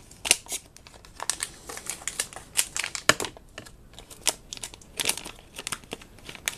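Clear plastic packaging crinkling and crackling in irregular bursts as it is handled and opened by hand.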